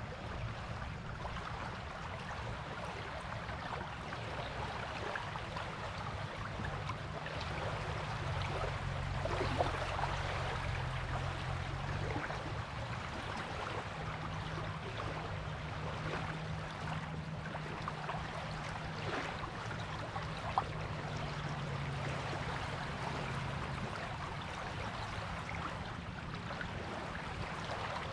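Waves washing on a beach, a steady rushing hiss that swells and eases, with a low steady hum underneath.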